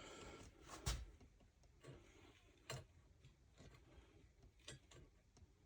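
Near silence broken by a few faint, scattered clicks and light knocks, about four in all, the loudest about a second in.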